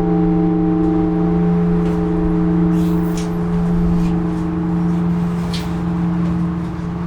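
Large Orthodox church bell ringing on: a strong low hum and several higher overtones held steady, one of them pulsing, with a few faint clicks.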